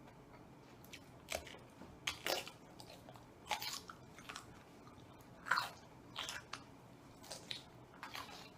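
A person biting into and chewing raw cucumber: irregular crisp crunches, starting about a second in.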